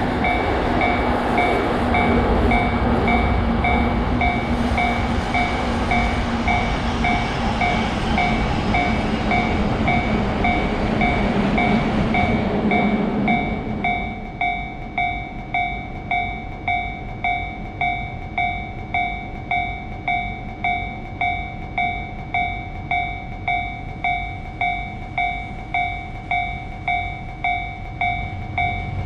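Japanese railroad crossing bell ringing steadily, about two strikes a second, while a train runs past. The train noise drops away about halfway through, leaving the crossing bell ringing on its own.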